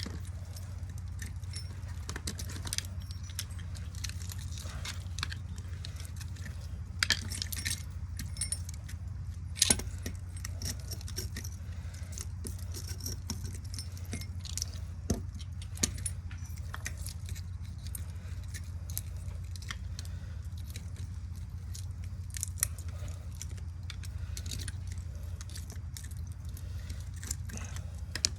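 Copper winding wire being worked out of a ceiling-fan motor by hand: scattered light metallic clinks and crackles, with a steady low hum underneath.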